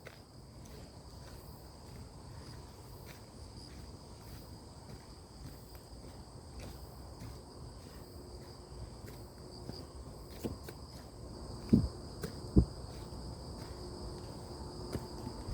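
Steady high-pitched insect chorus, likely crickets, trilling without a break. A few short low thumps come about two-thirds of the way in.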